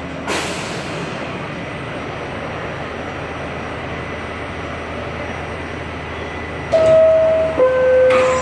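Steady background hum inside a standing R68A subway car, with a short rush of air hiss about a quarter second in. Near the end the car's two-tone door chime sounds, a higher held tone dropping to a lower one, the signal that the doors are about to close.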